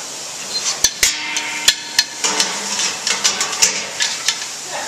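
Sheet-metal access door lid and its clamp latches clanking and clicking as the lid is seated on its frame and the clamps are worked. There are a few sharp metal knocks in the first two seconds, one about a second in leaving a brief ringing tone, then a quicker run of lighter clicks.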